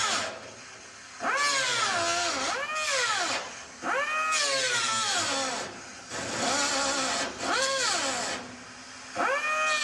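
Small handheld grinder cutting into the truck's sheet-steel body: a high motor whine that rises and falls in pitch again and again as the wheel is pressed into the metal and eased off, with a hissing grind, letting up briefly a few times.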